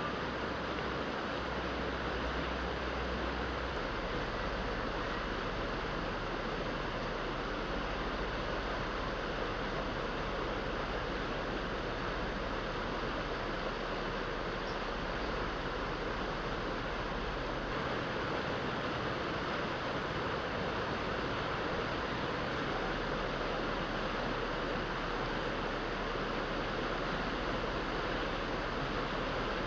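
Steady rush of fast-flowing water, like a river in flood.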